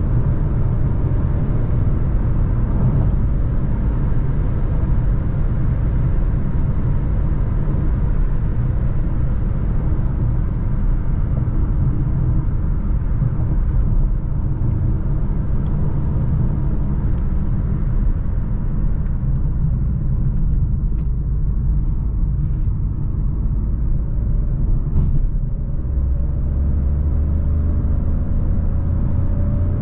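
Jeep Avenger with its 1.2-litre turbo three-cylinder petrol engine being driven: a steady low rumble of engine and road noise, with a few faint ticks and a faintly rising engine note near the end.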